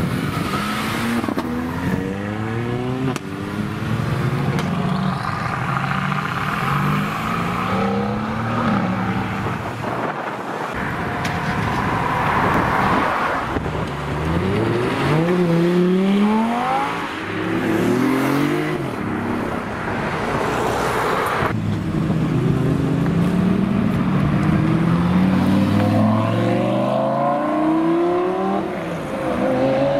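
Sports car engines revving and accelerating away one after another, each rising in pitch and dropping back as it shifts up through the gears.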